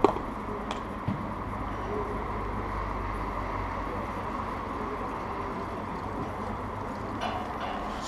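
A sharp padel ball strike right at the start, then a softer knock about a second in, over a steady low rumble of wind on the microphone.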